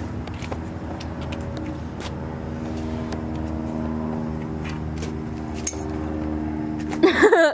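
A car engine idling steadily. A burst of laughter starts near the end.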